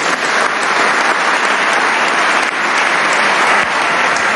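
Parliamentary audience applauding steadily, many people clapping at once.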